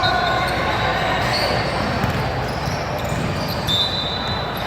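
Youth basketball game in a gym: a basketball bouncing on the hardwood amid crowd chatter, with a few brief high squeaks near the end.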